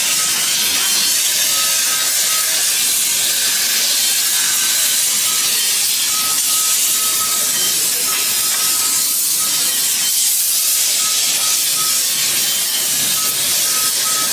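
Gas torch flame hissing steadily while small brass pieces are heated and joined together.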